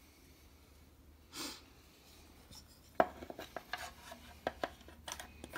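Sliding bevel being handled on an MDF board: light, irregular clicks and taps as its steel blade is swung and set against the stock, starting about halfway through, after a brief soft rustle.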